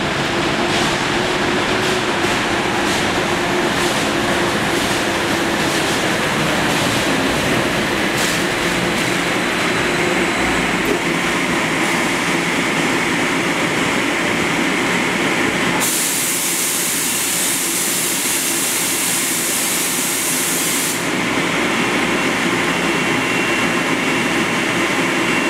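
Neoplan AN440LF electric trolleybus running steadily through the busway tunnel and pulling up to the stop. Past the middle comes a loud hiss of air lasting about five seconds that cuts off abruptly, and a thin high whine follows near the end.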